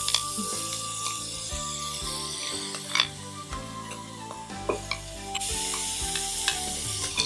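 Ground onion, ginger and garlic paste sizzling as it drops into hot oil in a frying pan, with a few sharp knocks of the steel mixer jar against the pan as it is emptied.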